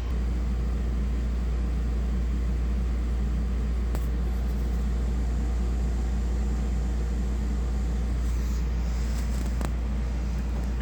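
Air conditioner running in cool mode, a steady low hum with a couple of faint clicks.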